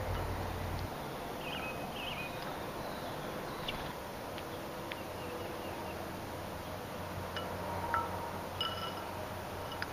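Quiet outdoor ambience: a faint steady hiss with a few brief, high-pitched chirps scattered through it.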